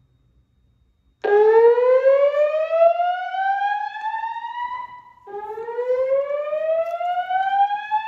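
Wheelock fire alarm speaker strobe sounding the slow whoop evacuation tone ahead of the voice message. A loud rising sweep of about three and a half seconds starts about a second in, and after a short gap a second rising sweep begins.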